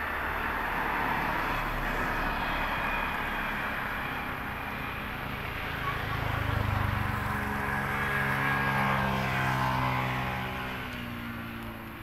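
A motor vehicle passing close by: a rushing noise builds, then the engine's steady hum comes up strongest from about halfway through and fades away near the end.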